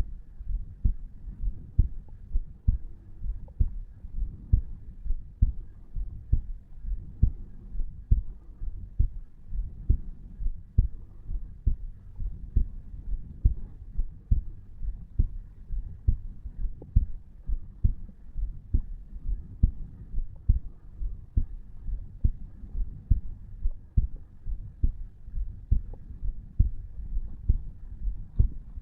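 A 34-year-old man's heartbeat at rest, recorded at the tricuspid valve area of the chest: a steady, even run of low thumps at about 60 to 70 beats a minute.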